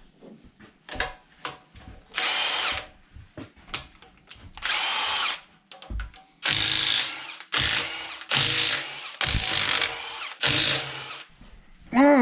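Handheld power drill-driver run in about seven short bursts, each under a second, its motor whine bending in pitch as it spins up and down, with clicks and light clatter of parts between bursts.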